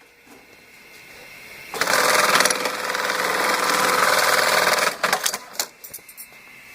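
Brother KE-434C industrial bar-tacking sewing machine running at high speed for about three seconds, stitching a plastic drapery tab. It is followed by a quick series of short clicks as the machine stops.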